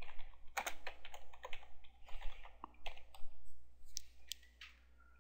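Typing on a computer keyboard: a run of quick, uneven key clicks that stops near the end.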